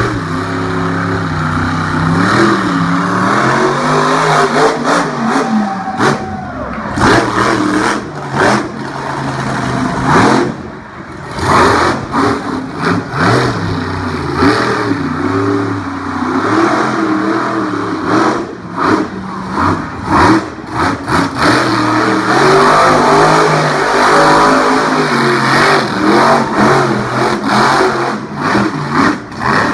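Monster truck engine revving hard in a freestyle run, its pitch climbing and falling again and again as the throttle is blipped and held.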